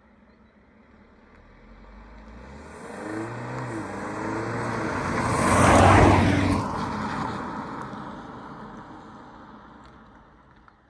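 BMW 330e plug-in hybrid on its stock exhaust accelerating past, its turbocharged four-cylinder petrol engine rising in pitch. The sound builds for several seconds, is loudest as the car goes by about six seconds in, then fades as it drives away.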